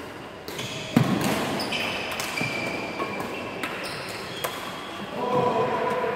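Badminton rally: racket strings hitting the shuttlecock with sharp smacks, the loudest about a second in, and rubber-soled shoes squeaking on the wooden court floor, echoing in a large hall.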